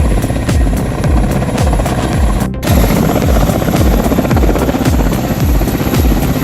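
Helicopter running, with the steady noise of its rotor and turbine and a regular low pulsing, under background music. The sound drops out for an instant about two and a half seconds in.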